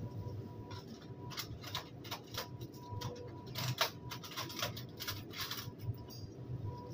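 Food-prep handling noise at a steel kitchen counter: a run of short clicks, taps and clinks as gloved hands work, over a steady low kitchen hum with a faint high steady tone.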